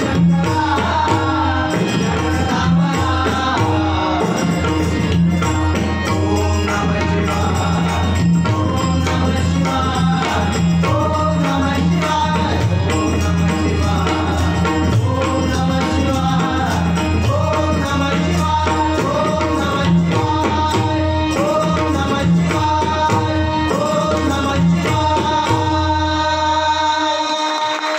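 Devotional bhajan singing by a male voice, accompanied by tabla and pakhawaj with quick strokes over a held low drone. The music winds down and fades about a second before the end.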